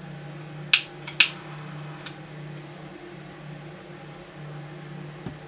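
Solder fume extractor fan running steadily at its lowest speed setting, a low hum. Two short, sharp noises come about a second in, with a fainter one shortly after.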